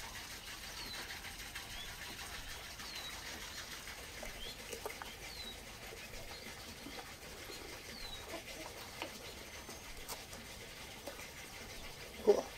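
A small bird chirps in the background, short falling chirps repeated every second or two, with a few faint clicks. Near the end comes one short, loud pitched call, the loudest sound.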